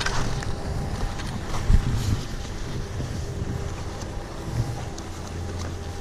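Wind buffeting the action camera's microphone as a skier slides slowly on groomed snow, skis scraping, with one dull thump about two seconds in.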